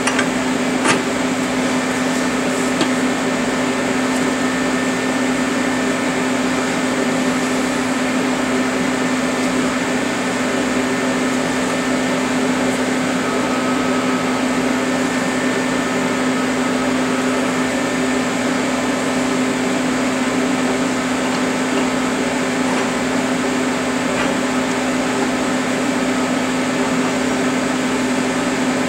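Steady hum of a running electric motor and fan, one low tone with fainter higher tones over it, unchanging throughout. A light metallic click about a second in.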